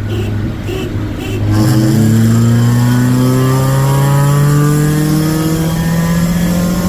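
Honda Prelude Si's H23A1 2.2-litre inline-four accelerating hard from about 40 mph. The engine note jumps up about a second and a half in, then climbs steadily as the revs rise.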